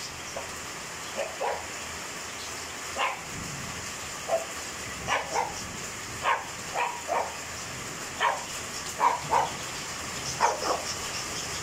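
Heavy rain falling steadily, with a dog barking repeatedly, often two barks in quick succession.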